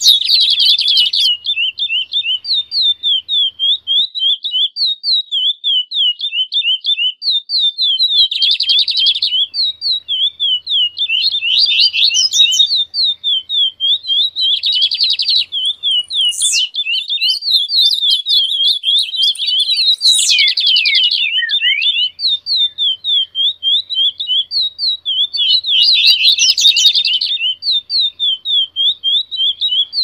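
A mixed chorus of songbirds (a 'baderna') chirping without pause: a quick high chirp repeating about four times a second, broken every few seconds by denser buzzy trills from other birds.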